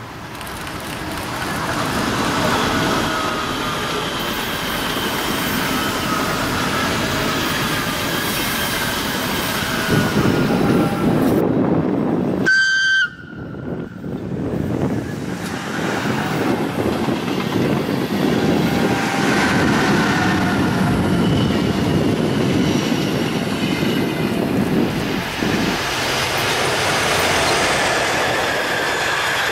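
Electric passenger trains running past at speed on the line: a steady rush of wheel and rail noise with faint gliding whines. Near the middle it breaks off briefly with a short tone, then the rushing resumes.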